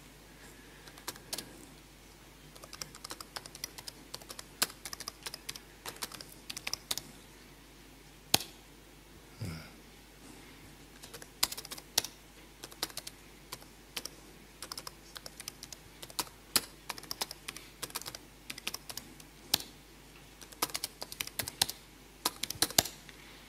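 Typing on a computer keyboard: irregular bursts of keystrokes with short pauses between them.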